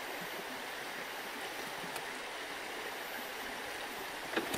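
Creek running steadily, with two short knocks near the end.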